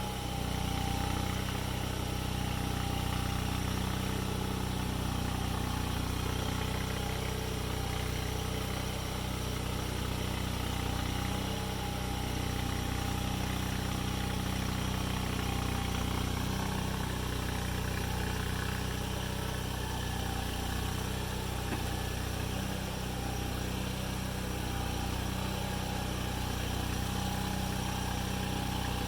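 Engine running steadily at an even speed, with no revving or change of load.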